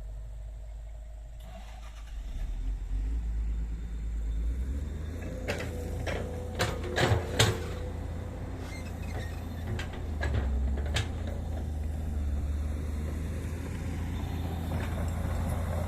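Komatsu PC200 hydraulic excavator's diesel engine running steadily, with a cluster of sharp knocks about halfway through as the machine works the ditch.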